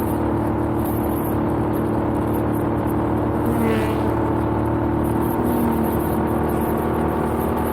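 Suzuki SV650X's 645 cc V-twin engine running at a steady cruising speed under way, with a steady hum and rush of wind and road noise.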